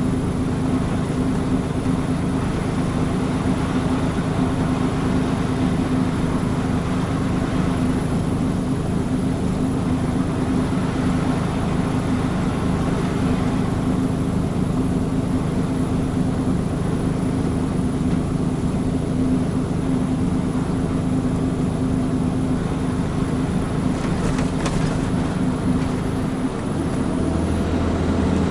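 Mitsubishi Fuso Super Great tractor unit's diesel engine running steadily under way, heard from inside the cab, with road noise beneath it. About two seconds before the end the engine note dips briefly and settles at a different pitch.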